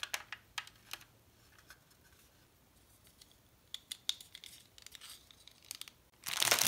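Small sharp clicks and taps of hard plastic model-kit parts being handled and pressed together, in two scattered runs. About six seconds in, a loud crinkling of a plastic bag starts.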